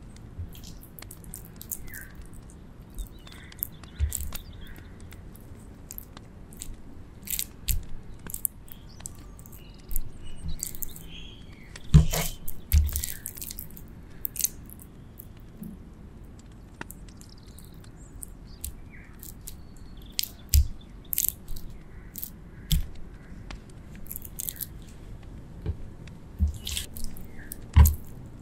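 Raw, spice-rubbed chicken breast pieces being threaded onto bamboo skewers by hand: scattered soft, wet squishes and crackles as the skewer goes through the meat. A few sharper knocks stand out, the loudest about twelve seconds in and again near the end.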